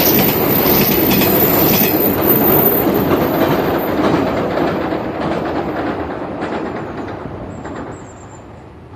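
381-series electric limited express train running past, its wheels clacking over the rail joints, then fading steadily as it moves away.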